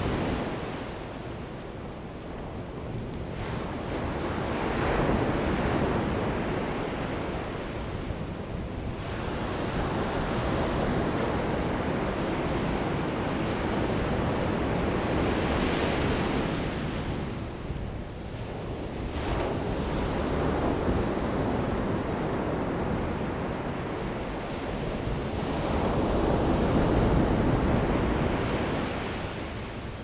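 Sea surf breaking on a sandy beach: a steady rushing wash of waves that swells and falls back several times.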